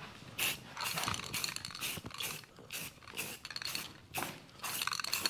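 Aerosol spray paint can being shaken, its mixing ball rattling and clinking in quick repeated strokes, about four a second: the paint being mixed before spraying.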